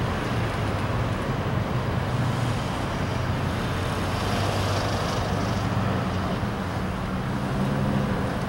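Cars driving past close by one after another: a steady run of engine hum and tyre noise, swelling as one goes by about halfway through.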